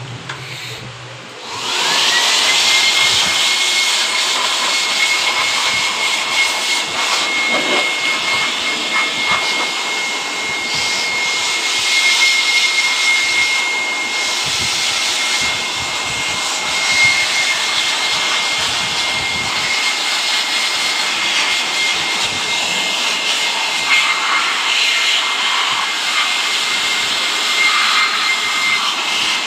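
Handheld electric air blower switched on about a second and a half in. Its motor whine rises quickly to one steady high pitch over a loud rush of air as it blows water off a washed motorcycle's engine and wiring.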